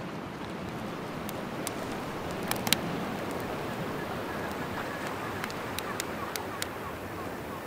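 Light chop on the lake washing against the shore, a steady dull roar, with broken ice shards swishing in the shallows. Scattered sharp clicks come through over it.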